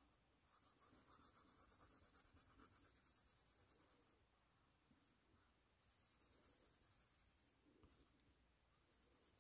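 Faint scratching of a wax crayon rubbed on sketchbook paper in quick back-and-forth coloring strokes. The scribbling stops for about two seconds around the middle and briefly again near the end.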